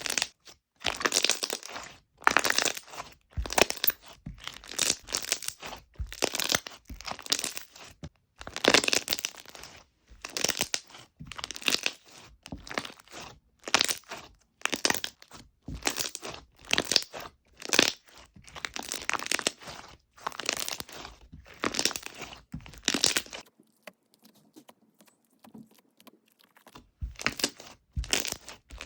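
Hands squishing and pressing a soft, chewy slime over and over, a short squish roughly once a second, with a pause of a few seconds near the end.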